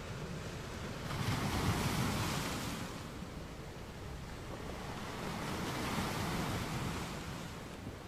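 Sea waves washing, with two swells of surf about four seconds apart.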